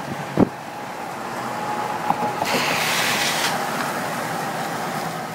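Road noise inside a moving car: a steady hum of tyres and engine, with a light knock near the start and a louder rush of hiss for about a second, about two and a half seconds in.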